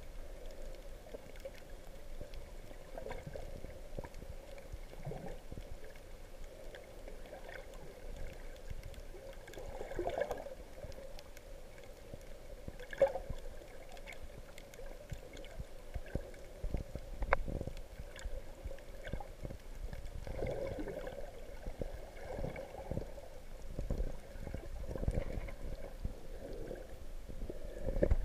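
Muffled underwater water noise picked up through a GoPro's waterproof housing: a steady dull wash with irregular louder swishes and a few faint clicks.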